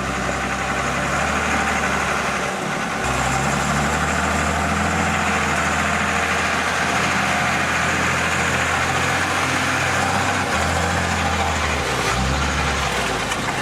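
Heavy logging truck's engine running under load while hauling timber through mud, its note dropping and rising a few times as the revs change.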